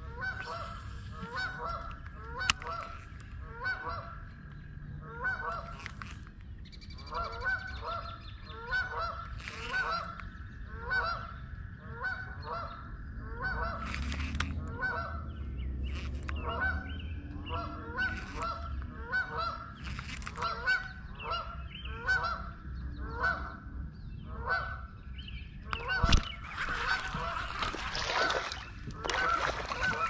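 Geese honking over and over, several calls a second. Near the end there is a knock and a splashy rush of noise as a hooked black crappie is brought up out of the water.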